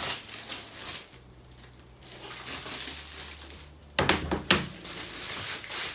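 Cardboard box packaging being handled and pulled open: a steady rustling scrape for a couple of seconds in the middle, with sharp knocks near the start and a little after it.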